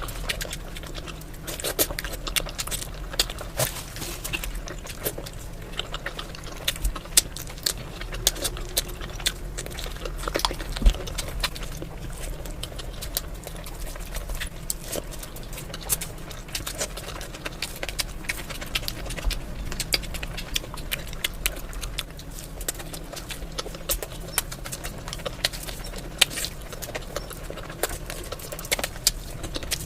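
Close-miked eating sounds: wet chewing and lip smacking, a steady stream of small irregular clicks from the mouth.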